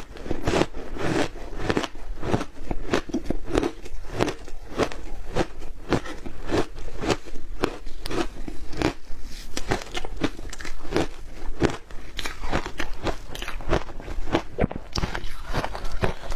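Shaved ice with matcha and milk powder being bitten and chewed: rapid, continuous crunching of frozen ice.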